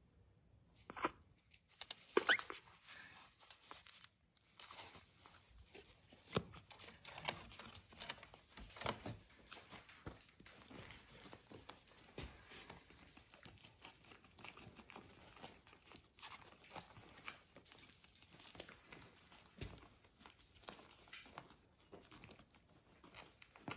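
Faint rustling and shuffling of cloth bedding as a litter of young puppies and their mother dog move about in a plastic crate, with scattered soft clicks throughout and a couple of sharper short sounds about one and two seconds in.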